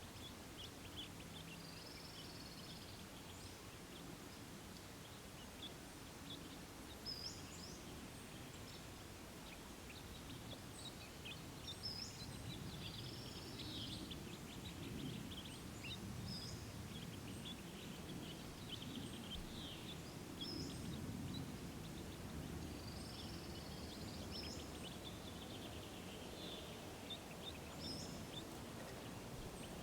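Outdoor ambience: small birds chirping and calling at intervals over a faint low rumble.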